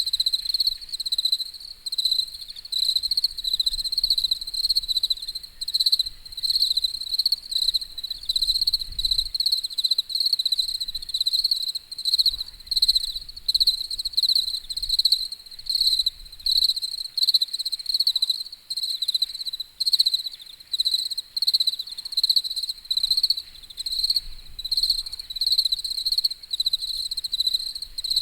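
Crickets chirping, a high-pitched pulsing trill that keeps going without a break.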